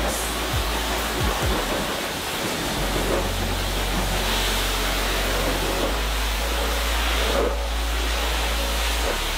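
Pressure washer spray hissing steadily as it blasts dirt off a car's wheel and door panel, with a low, steady hum from the washer's pump underneath from about three seconds in.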